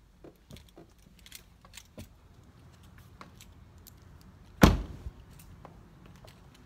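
Genesis G80 sedan's driver door being shut once with a single solid thud about two-thirds of the way through, after a few light clicks and rustles as the phone is handled while getting out of the car.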